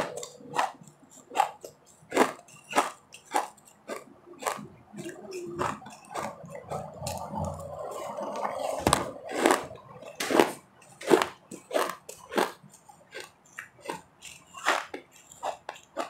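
Refrozen powdery ice being bitten and chewed close to the microphone: a run of sharp, crisp crunches at about two a second, thinning into softer, mushier chewing for a few seconds in the middle.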